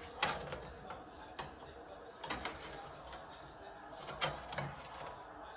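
Metal kitchen tongs clicking and tapping as they pull apart roast pork shoulder, with several sharp, irregularly spaced clicks.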